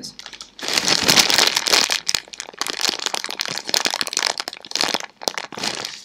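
Clear plastic crumpled and scrunched by hand right at a microphone: a dense run of crinkles and sharp crackles starting about half a second in, made as a Foley stand-in for a crackling fire.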